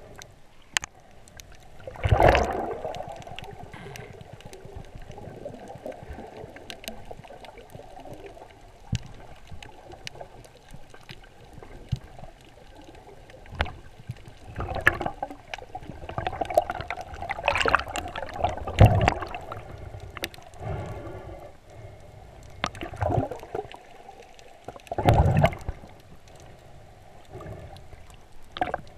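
Muffled underwater water noise picked up through a submerged action camera's housing as a diver swims. A steady dull rush is broken by several louder swishing surges, with small ticks and knocks between them.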